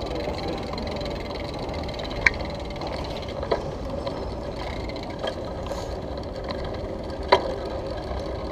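Bicycle rolling over stone paving, heard through a handlebar-mounted camera: a steady rumble of tyres and rattling, with a few sharp knocks, the loudest about two and seven seconds in.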